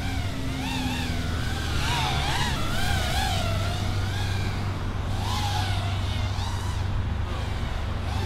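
ViFly R130 racing quadcopter in flight, its brushless motors whining at a pitch that swoops up and down with the throttle, over a steady low hum.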